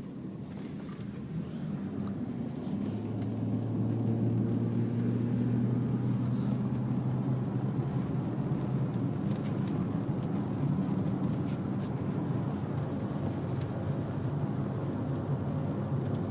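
A car driving, heard from inside the cabin: a steady low engine and road hum that grows louder over the first few seconds and then holds steady.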